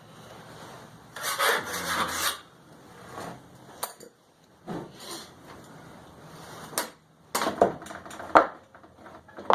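Marking out on a steel plate: a few short scratchy rubbing strokes of a marker being drawn across the metal, with several sharp clicks in between.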